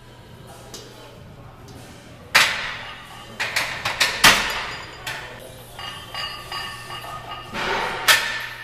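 Metallic clanks and thuds of iron weight plates on a loaded barbell during banded box squats: a cluster of sharp clanks from about two to four and a half seconds in, the loudest just past four seconds, and another clank near the end. Gym chatter goes on underneath.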